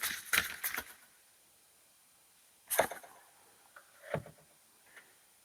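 Large tarot cards being handled: a quick run of card clicks in the first second, then a sharp snap of a card about three seconds in and a softer knock a little later as cards are drawn and set on the table.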